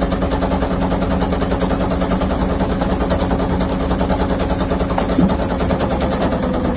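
A loud, steady, rapid rattle like a small motor running.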